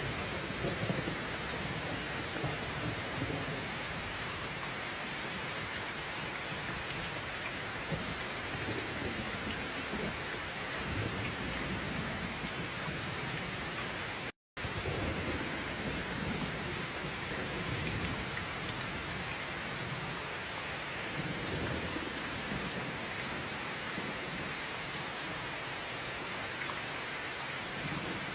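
Steady heavy rain falling on surfaces, a dense even hiss, with low rolls of distant thunder coming and going. About halfway through, the sound cuts out completely for a fraction of a second, then resumes.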